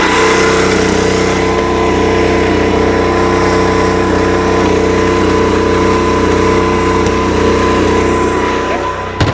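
Onan MicroLite 4000 RV generator running steadily and strong at an even speed, heard close up, putting out about 120 volts after a tune-up. A sharp click comes just before the end.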